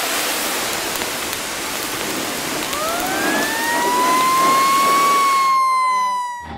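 A steady hiss of water spraying from a fire hose, with a siren wailing up in pitch from about three seconds in. The spray cuts off near the end, leaving the siren alone as its pitch slowly falls.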